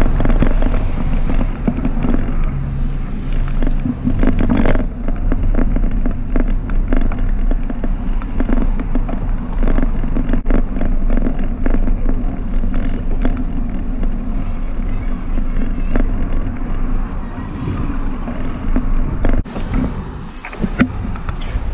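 Bicycle ride noise on the camera microphone: a steady low rumble of wind and road vibration, broken by constant crackling knocks and rattles as the bike rolls over rough, cracked pavement. It eases briefly near the end.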